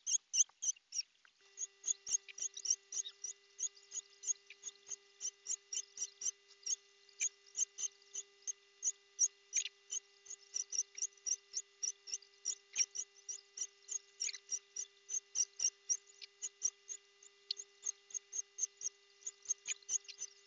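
A white cat's repeated meowing, sped up eightfold so each cry becomes a short, high squeak, about three a second.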